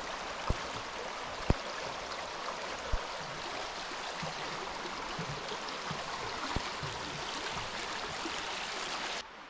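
Fisherman River flowing: a steady rush of running water, with a few brief knocks in the first three seconds.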